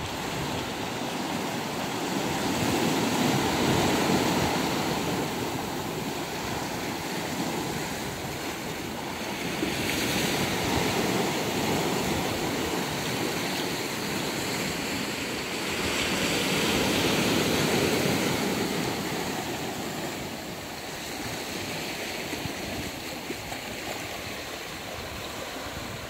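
Small sea waves washing in among the rocks of a rocky shore: a steady wash of surf that swells louder several times.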